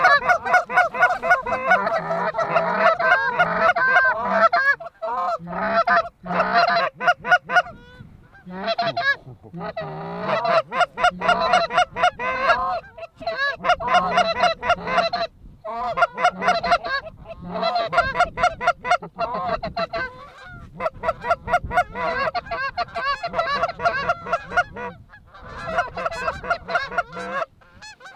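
Geese honking and clucking in fast, repeated runs with brief pauses every few seconds, the call of a goose flock working decoys.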